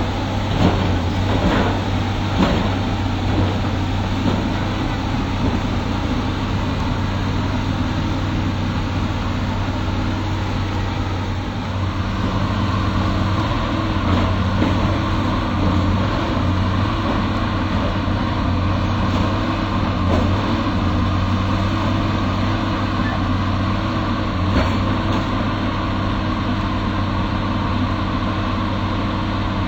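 Excavator's diesel engine running steadily, with a few short knocks in the first seconds and a higher steady hum joining about twelve seconds in.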